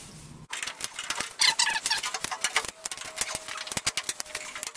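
Wooden popsicle sticks being pried off a fiberglass car door skin and body where they were stuck on with hot-melt glue: a rapid run of clicks and cracks, with squeaky scraping about a second and a half in.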